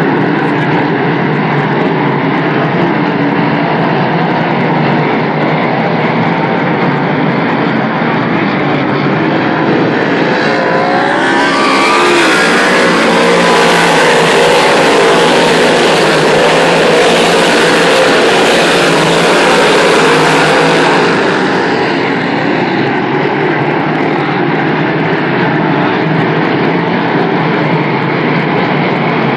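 A field of big-block V8 dirt modified race cars running flat out around the oval. Their engines are loud and continuous, swelling to their loudest and brightest about halfway through as the pack passes close by with a rising rev, then falling back.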